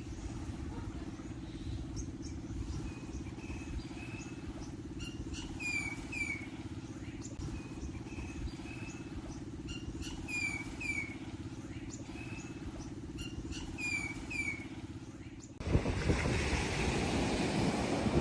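A steady low rumble with a bird calling over it in short, downward-sliding chirps that come in clusters every few seconds. About three seconds before the end, the sound cuts abruptly to the louder rush of surf and wind.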